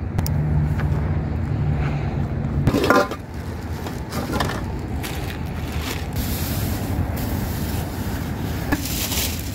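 A vehicle engine's steady low hum, which stops abruptly about three seconds in. After that, wind noise on the microphone with a few faint clicks from handling.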